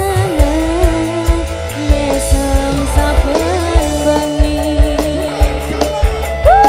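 Live dangdut koplo band music at full level: a wavering melody line over bass and a steady drum beat, with a note that swoops up and falls back near the end.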